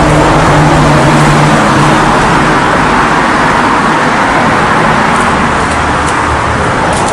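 Steady, loud rushing noise outdoors, with a low hum that fades out about two seconds in.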